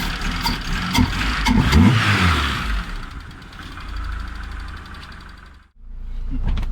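Honda B20 VTEC engine (2-litre B20 block with a B16 VTEC head) running just after it has been made to start, revved up and back down a couple of times in the first three seconds, then idling. The sound cuts out briefly near the end and comes back at a steady idle.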